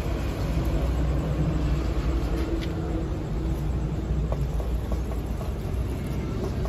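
A steady low machine hum, like a motor or engine running, with a few faint scrapes and clinks as an iron shovel moves glowing coals over brick.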